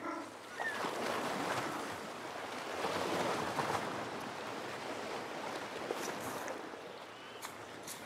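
Steady rushing wash of surf, swelling a little midway, with no penguin calls. A faint short rising chirp comes about half a second in.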